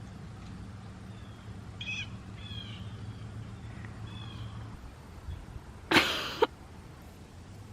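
A few faint, short, high calls from an animal, each falling slightly in pitch, over a low steady hum. About six seconds in comes one loud, brief noise.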